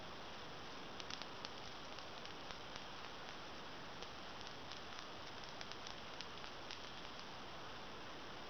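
Long natural fingernails clicking lightly against one another: a scatter of small, irregular clicks starting about a second in and stopping near the end, over a faint steady hiss.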